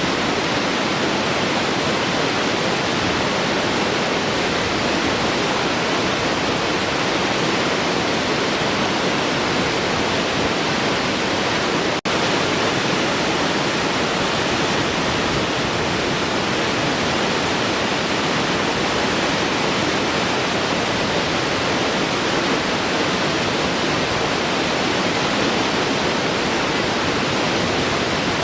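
Large waterfall flowing: a steady, dense rush of falling water, with a momentary dropout about twelve seconds in.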